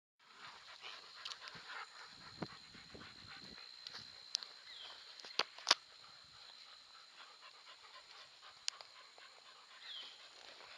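Dogs panting, with a few sharp clicks about halfway through.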